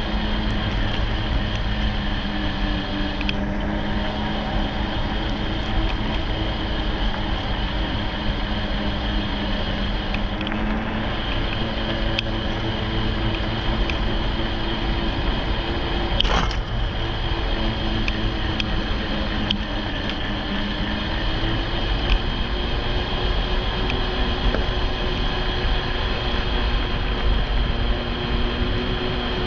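Riding an electric bike: wind buffeting the microphone and tyre rumble, with a steady electric-motor whine whose pitch rises gently in the second half. One sharp knock about halfway through.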